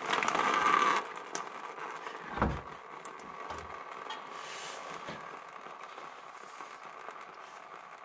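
Power steering fluid pouring from a disconnected pressure hose fitting into a drain pan for about a second, then stopping. A single knock comes about two and a half seconds in, followed by a few faint clicks.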